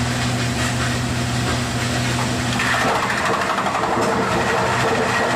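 Wood crusher machine running steadily with a low motor hum; about two and a half seconds in, a higher-pitched grinding joins.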